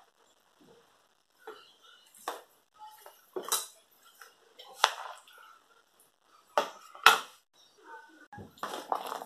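Kitchen utensils clinking against dishes: a handful of sharp, separate clinks about a second apart.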